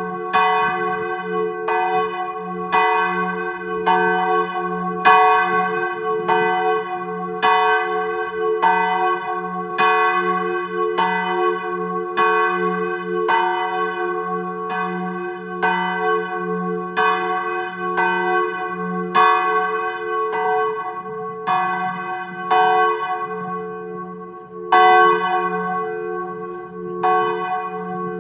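A single large church bell, the tenor of a four-bell Colbacchini peal tuned in G-flat, swinging full circle in 'distesa' ringing. Its clapper strikes about once a second over a steady low hum.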